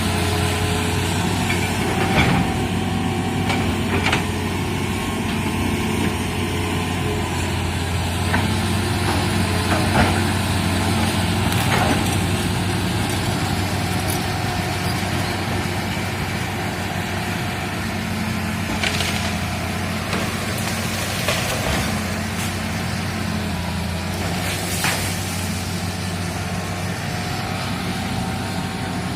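Excavator's diesel engine running steadily under load, with occasional sharp knocks and a couple of short hisses.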